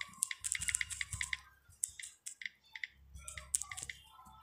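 Key-press clicks of a smartphone's on-screen keyboard as a name is typed: a quick run of short clicks, a pause, then a few more near the end.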